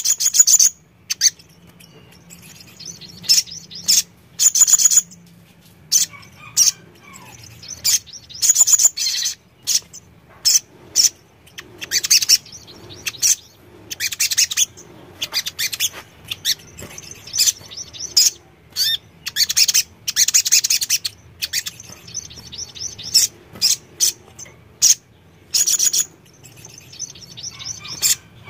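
Male olive-backed sunbird singing: quick bursts of high, thin chirps and rapid trills, one after another with short pauses between them.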